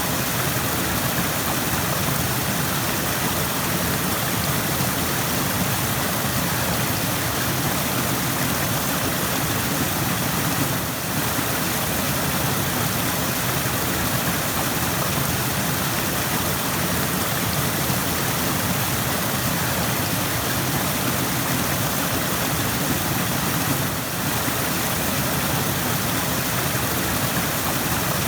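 Rushing stream water flowing steadily, an even rush of noise that dips briefly twice.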